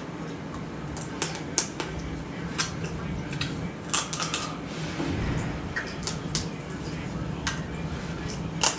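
Crab shells cracking and snapping as they are pulled apart by hand: a string of irregular sharp cracks and clicks.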